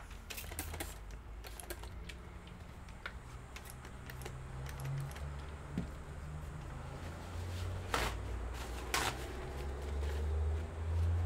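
Scattered small clicks and taps of laptop plastic and metal parts being handled during disassembly, with two louder clicks about eight and nine seconds in, over a steady low hum.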